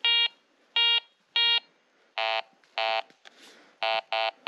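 Metal detector beeping: about seven short electronic tones at more than one pitch, coming irregularly as the coil passes over buried metal.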